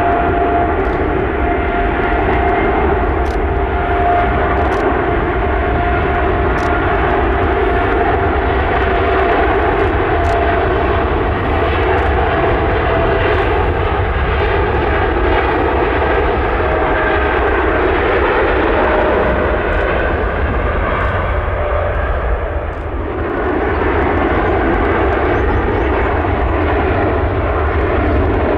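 Jet airliner's engines running loud and continuous, a dense noise with a steady whine over it, dipping briefly about three-quarters of the way through.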